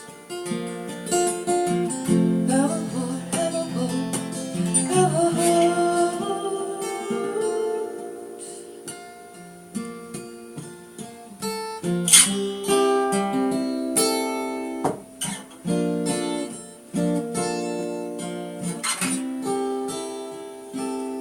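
Instrumental break of a song on acoustic guitar, with strummed chords and plucked notes.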